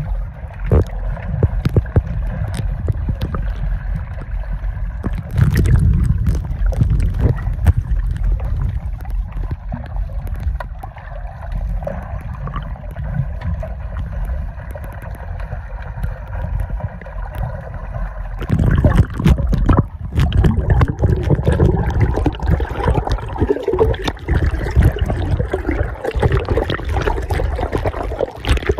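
Muffled water sloshing and gurgling heard through a phone held underwater, over a steady low rumble and many small clicks. About two-thirds of the way in it turns fuller and more turbulent.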